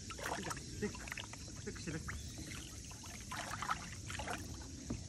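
Jack Russell terrier wading in a shallow plastic tub of water, its legs splashing and sloshing the water in two short bouts: one in the first second and another about three and a half seconds in.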